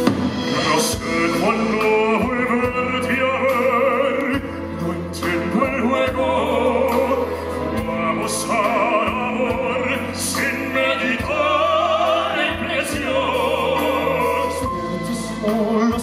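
Male crossover vocalist singing a ballad live in a full operatic style with wide vibrato, over sustained keyboard and band accompaniment.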